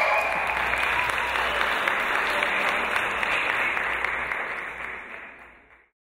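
Audience of children applauding, fading out to silence about five seconds in.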